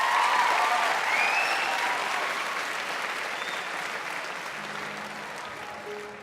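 Large studio audience applauding and cheering, with whoops near the start; the clapping gradually dies down. A faint low held note comes in near the end.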